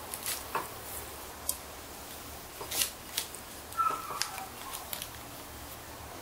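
Scattered light clicks and knocks from a homemade pneumatic airsoft shotgun being handled and worked at its breaking-barrel breech, with a brief squeak about four seconds in.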